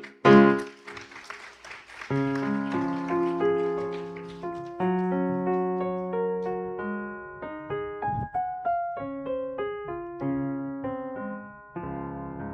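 Keyboard playing in a piano voice: two loud chords at the start, then a slow melody over held chords that softens near the end.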